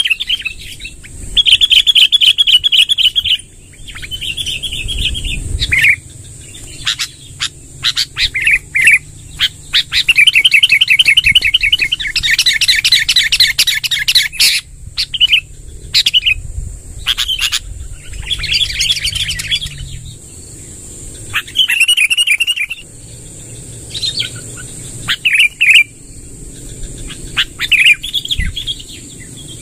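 Sooty-headed bulbul (kutilang) singing in long rolling trills, each a second or two long, broken up by short sharp whistled notes. A faint steady high hiss runs underneath.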